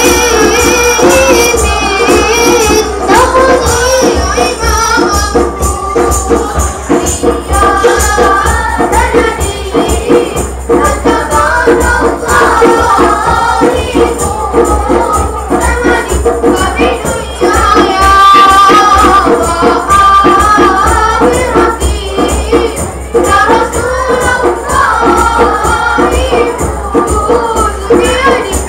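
A boys' nasyid group singing together into microphones, amplified, over a steady, busy beat of hand percussion with a jingling, tambourine-like sound.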